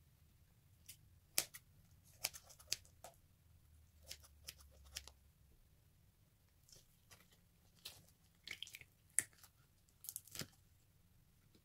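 Fingers squeezing and tearing open the rubbery skin of a squishy stress ball filled with glitter gel: a scatter of short, sharp crackles and sticky clicks in small clusters.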